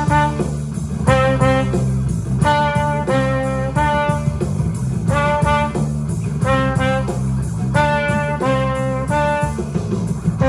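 Trumpet playing a melody in short repeated phrases of a few notes each, over accompanying music with a low bass line.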